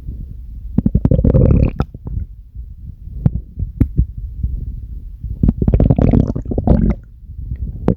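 A human stomach growling and gurgling: a low continuous rumble with two louder, longer growls, one about a second in and another from about five and a half seconds in.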